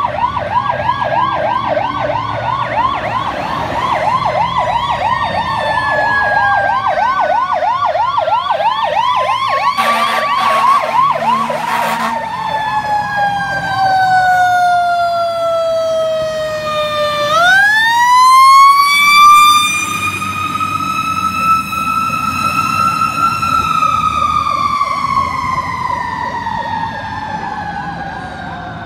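Fire engine sirens sounding loud. For the first several seconds a fast yelping siren warbles over a slower wail that falls in pitch, with a harsh blast around ten seconds in. Past the middle the wail winds up sharply, then coasts slowly down in pitch.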